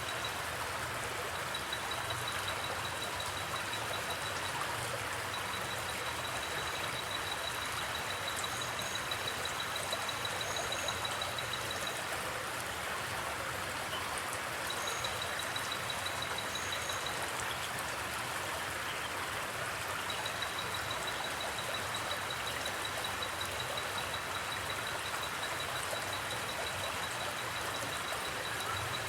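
River flowing steadily, with a cricket trilling in long runs of rapid pulses that stop and restart several times, and a few brief higher chirps around the middle.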